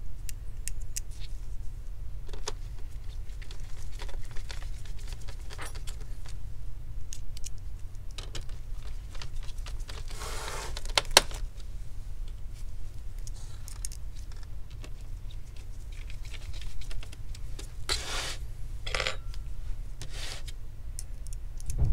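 Small metal clicks and clinks of a hand screwdriver and small screws as screws are driven into a plastic display frame, scattered all through, with brief rustles of handling about halfway and near the end. A steady low hum lies underneath.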